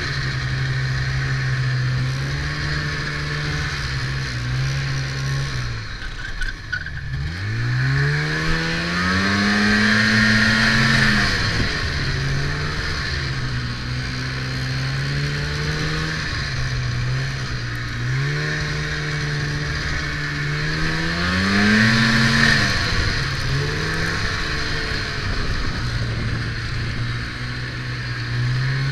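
Snowmobile engine running under way, its pitch rising and falling as the throttle is opened and eased. The revs drop sharply about six seconds in, then climb again, and climb once more around twenty seconds in before settling.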